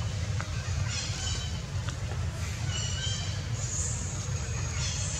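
Short, high-pitched animal calls, each a few clear tones stacked together, repeating every second or two over a steady low rumble.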